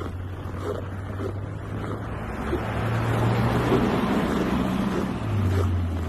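Footsteps crunching on very cold, dry snow, over a steady low engine hum that swells louder through the middle.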